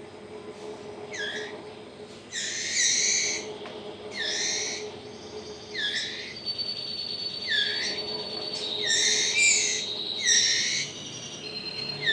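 White-rumped shama fledglings, about 20 days old, giving begging calls while being hand-fed: short hooked chirps repeated about every second and a half.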